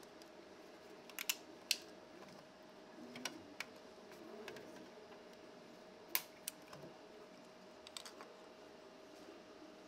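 Scattered sharp clicks and light taps as a flexible steel 3D-printer build plate is lifted, flexed to pop printed plastic parts free, and the parts handled; the loudest click comes about six seconds in. A faint steady hum runs underneath.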